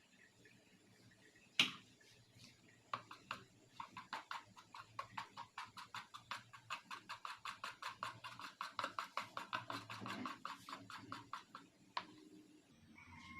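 A utensil beating batter ingredients in a mixing bowl by hand, making quick, even clicks against the bowl, about four to five a second. The beating runs for roughly nine seconds and stops with a sharper knock.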